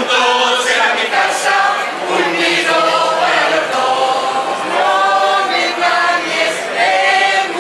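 A choir singing a song together, with long held notes.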